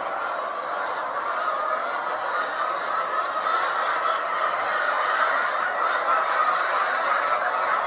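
Dense, steady clucking and chatter of many laying hens together in a hen house, with no single call standing out.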